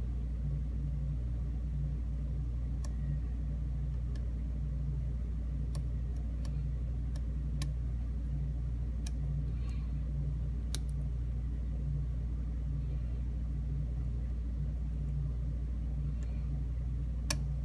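Faint, scattered sharp clicks of a lock pick working the pins of a 5-pin Schlage mortise cylinder, with a tension wrench in the keyway. A steady low rumble runs underneath and is louder than the clicks.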